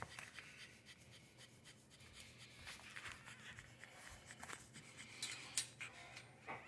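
Faint rustling and soft scattered clicks as newborn French bulldog puppies nurse and shift against their mother on a fleece blanket, over a low steady hum. One sharper click comes about five and a half seconds in.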